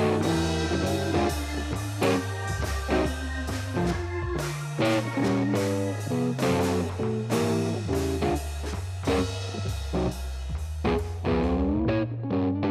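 Background music: plucked guitar notes over a steady bass line and beat.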